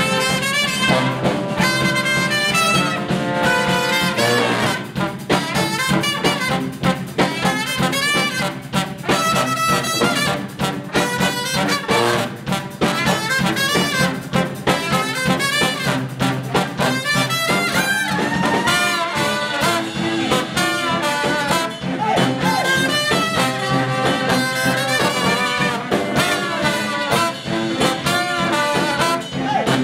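Live brass band playing an up-tempo tune: trumpet, trombone and saxophones over a sousaphone bass line and a drum kit's steady beat.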